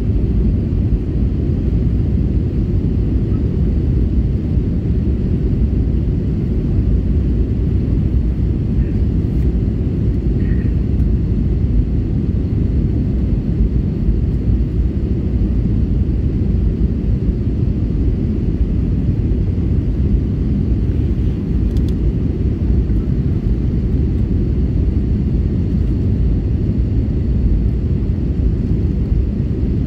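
Steady low rumble inside the cabin of an Airbus A320neo in flight, from its Pratt & Whitney PW1127G geared turbofan engines.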